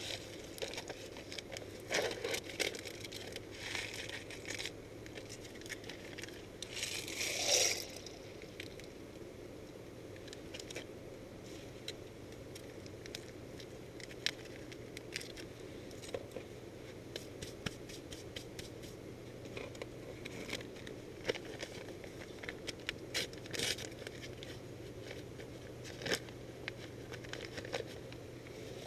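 Food packaging handled by hand: crinkling, tearing and small clicks and scrapes as a can and a packet are handled and opened, with a louder rustle about seven seconds in.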